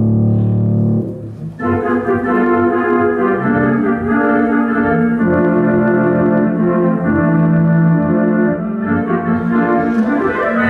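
Theatre organ played live: low held chords break off about a second in, then after a brief gap a fuller, brighter passage of sustained chords begins.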